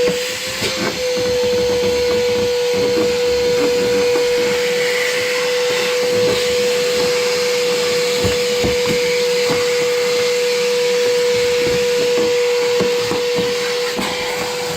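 Wet/dry shop vacuum running steadily with a constant whine and a rush of air, with irregular small crackles as it sucks up water and debris.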